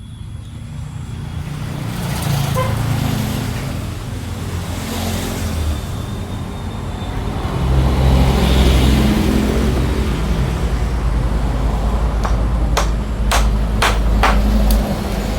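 A loud, steady low mechanical rumble that builds over the first few seconds, with several sharp knocks near the end.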